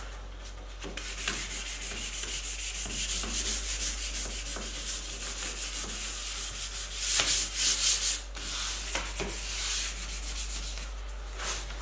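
Hand sanding of a wooden cabinet's sealed, varnished side panel with a hand-held sanding pad, in quick back-and-forth strokes of about three a second. The strokes grow louder for a moment a little past the middle.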